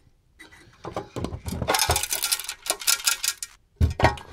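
Metallic clatter and scraping from a sheet-aluminium instrument enclosure and its chassis being handled: a dense run of clinks and rubbing from about a second in, then a few separate knocks near the end.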